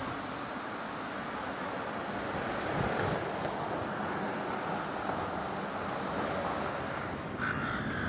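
Steady rushing outdoor noise of wind on the microphone. Near the end a crow starts cawing.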